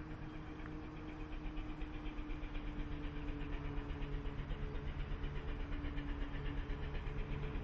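Steam locomotive 3801 working through a tunnel towards the listener, its exhaust beating in a quick, even rhythm that grows louder as it approaches, over a steady hum.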